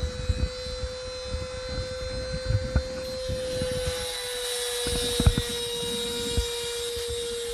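Dremel rotary tool running at a steady high pitch, shaving down a metal pin on an automotive fuel pump relay. Irregular low knocks and bumps come in under it.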